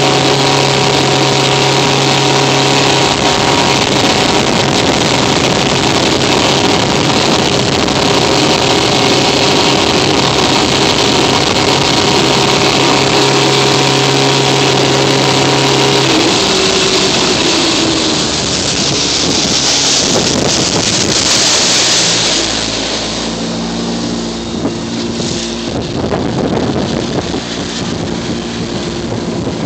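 Fishing boat's engine running at speed under a hiss of wind and rushing water, its steady tone falling away about halfway through as the boat is throttled back. Near the end the boat runs slower, with a lower engine note and less rush of water.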